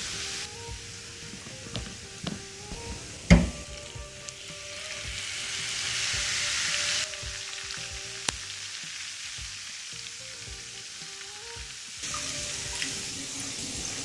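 Chopped garlic and scallions sizzling in hot oil as they are stirred with a spatula, frying down into garlic oil; the sizzle swells loudest around the middle. A single loud knock about three seconds in, with quiet background music underneath.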